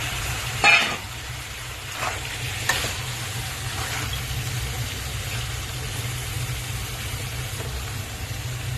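Raw chicken pieces going into a pan of hot onion-tomato masala and being stirred, with a steady sizzle. There is a sharp clatter of the spoon against the pan about a second in, and lighter knocks a couple of seconds later.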